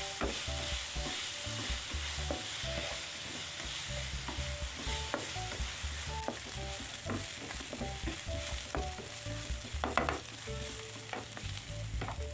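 Chopped chilies, shallots and garlic sizzling in oil in a nonstick frying pan, stirred with a spatula that scrapes and taps the pan again and again, with a louder scrape about ten seconds in.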